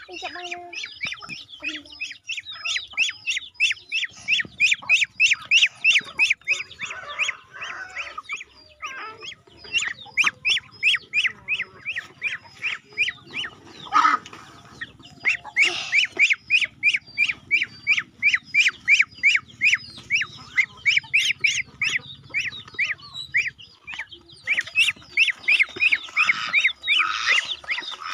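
Poultry calling in long runs of short, high-pitched calls, about three a second, that stop and start again, with a brief louder noise about fourteen seconds in.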